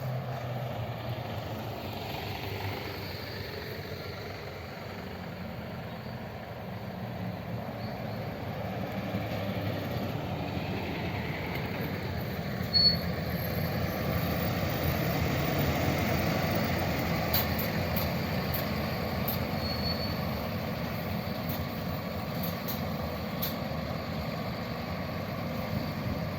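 Sightseeing bus engine running as the bus drives by, the noise slowly building to its loudest about two-thirds of the way through, with a single sharp knock about halfway.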